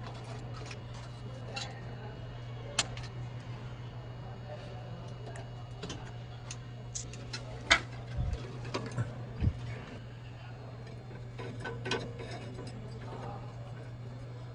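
Scattered sharp metallic clicks and knocks, the loudest about halfway through, over a steady low hum: tools and metal parts handled during exhaust fitting work.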